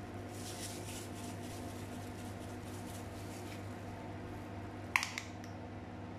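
Plastic squeeze bottle of sauce being squeezed: a few faint hissing spurts, then a sharp click about five seconds in followed by two softer ones, over a steady low hum.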